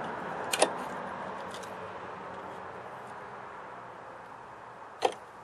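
Steel wrenches clicking against the rocker-arm adjusting nuts of a small overhead-valve engine while the valve lash is being set: a quick pair of light metallic clicks about half a second in and another near the end, over a steady hiss that slowly fades.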